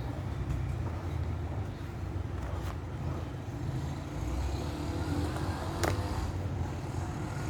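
Steady low rumble of background noise, with a sharp click about six seconds in.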